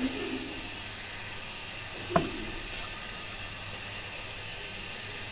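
Wooden rolling pin being rolled over a slice of white bread on a wooden board, faint under a steady hiss, with one soft knock about two seconds in.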